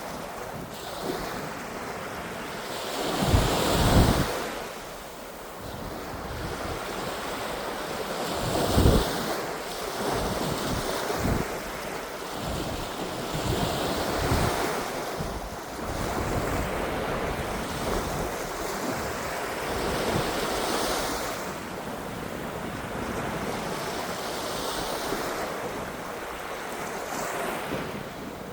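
Baltic Sea waves washing ashore in slow, repeating swells, with wind buffeting the microphone in gusts, strongest about four and nine seconds in.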